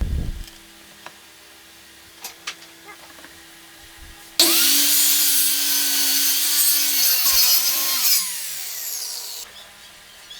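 A thump and a few light knocks, then a homemade miter saw starts suddenly and cuts through wood loudly for about three and a half seconds. After switch-off its motor winds down with a falling whine.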